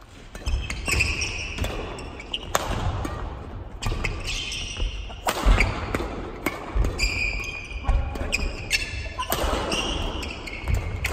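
Doubles badminton rally on a wooden gym floor: rackets striking the shuttlecock with sharp smacks, and court shoes squeaking and feet thudding as the players move.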